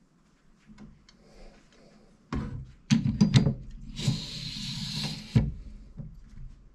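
Several loud knocks and clunks of hardware being handled on a desk, then a rubbing, sliding noise for about a second and a half that stops abruptly.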